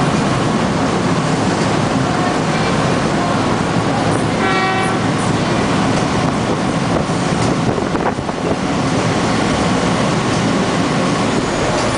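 Steady engine rumble and water and wind noise aboard a motor launch under way, with one short horn toot about four and a half seconds in.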